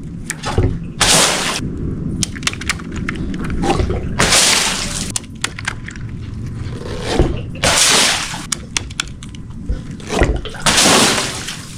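Water-filled balloons bursting and splashing, four rushing splashes a few seconds apart, with scattered sharp clicks and drips between them.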